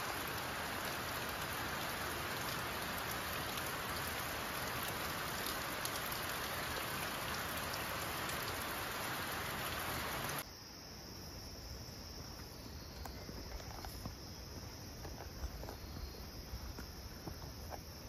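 Steady rain falling. About ten seconds in it cuts off abruptly to a quieter scene in which insects, crickets or similar, keep up a high steady trill with a few faint ticks.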